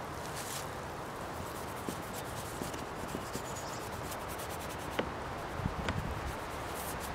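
Paint being scrubbed and rubbed onto a large painted board in steady strokes, with a few soft knocks about five seconds in.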